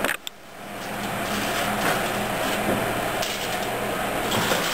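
Steady rushing noise with a low hum from the electric range while the oven door is opened and a foil tray of garlic bread is slid onto the rack, with a click just after the start and a few faint knocks near the end.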